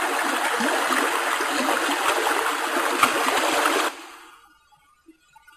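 Rushing water of a swollen river, a steady loud rush that cuts off suddenly about four seconds in, leaving only faint background sound.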